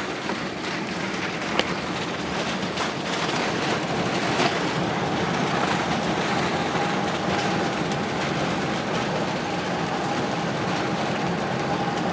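Cabin noise of an Airbus A380 rolling on the ground after landing: a steady rush of engine and airflow noise with the rumble of the landing gear, a few light knocks, and a faint steady whine that comes in about four seconds in.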